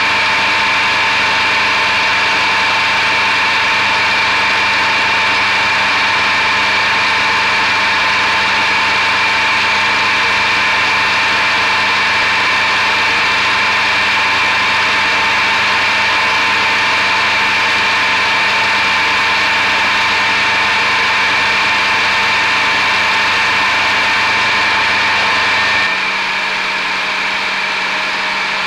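Metal lathe running steadily with a steel shaft spinning between centres, its motor and gearing giving a constant whine. Near the end a low hum drops away and it gets slightly quieter.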